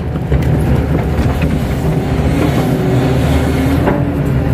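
Kato crawler excavator's diesel engine running steadily, heard from inside the cab, as the boom lowers the bucket into the mud.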